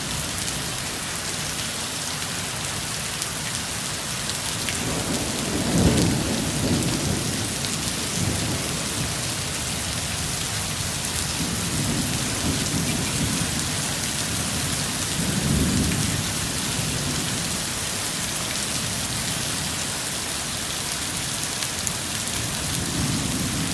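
Heavy rain pouring steadily, with low rolling rumbles of thunder; the loudest comes about six seconds in and another around fifteen seconds.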